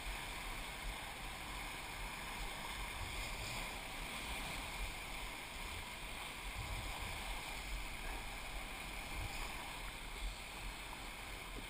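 Steady rush of churning whitewater in a muddy river rapid, heard from just above the water's surface.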